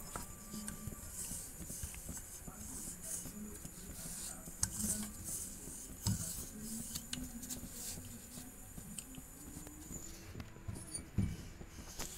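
A rolling pin working a stuffed dough ball flat on a round rolling board: quiet rolling and rubbing with scattered light knocks and clicks.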